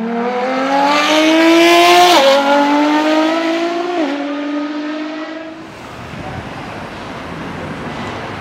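A high-performance car engine accelerating hard through the gears: its pitch climbs steadily, drops sharply at two upshifts about two and four seconds in, then holds and stops about six seconds in. Steady background noise follows.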